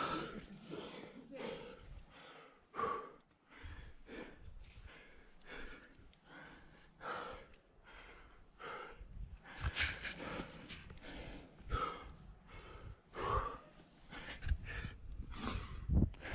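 A rock climber breathing hard from exertion while climbing, quick breaths in and out about one to two a second.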